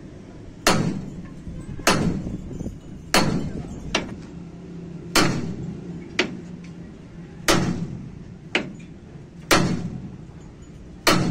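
Heavy hammer blows on the steel king pin and steering knuckle of a Hino truck's front axle: seven sharp metallic strikes, one every one and a half to two seconds, each ringing briefly, with a few lighter taps between.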